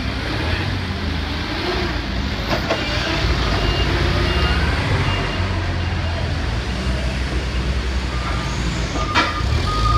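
Forklift engines running, with backup-alarm beeps repeating: a higher-pitched beeper in the middle, a lower-pitched one starting near the end. A sharp knock comes about two and a half seconds in and another just after nine seconds.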